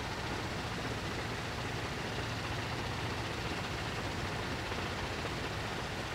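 A steady low engine hum under an even hiss, unchanging throughout.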